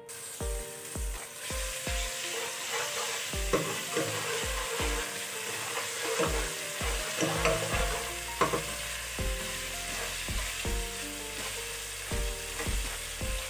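Ginger-garlic paste sizzling as it fries in hot oil in a steel pot, stirred with a steel ladle; the sizzle is a steady hiss, with short knocks scattered through it.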